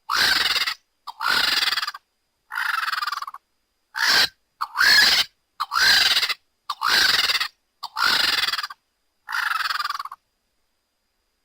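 Pteranodon creature sound effect: a series of about nine short, high screeches, each under a second long, with brief silences between them.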